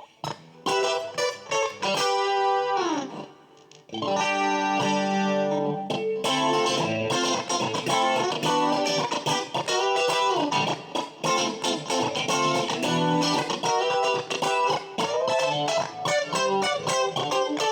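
Fender Player Stratocaster electric guitar played through a clean tone, picking notes and chords. About two to three seconds in, a group of notes glides down in pitch, then the playing pauses briefly. After that the playing carries on steadily.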